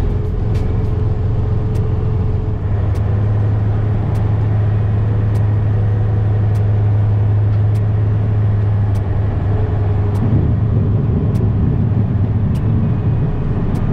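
Semi truck's diesel engine running steadily, heard from inside the cab, with faint regular clicks about once a second. The engine note changes about ten seconds in.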